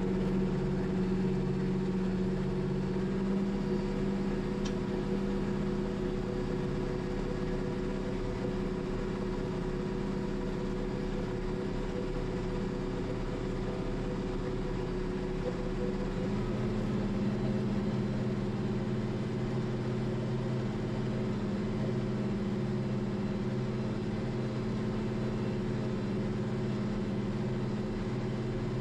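International 1586 tractor's diesel engine running steadily under load while pulling a corn planter. Its tone shifts slightly about halfway through.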